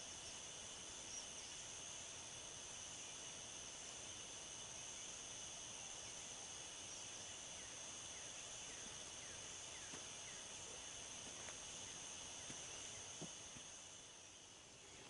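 Faint, steady chorus of night insects: an even, high trill with no pauses, and a few soft clicks in the second half.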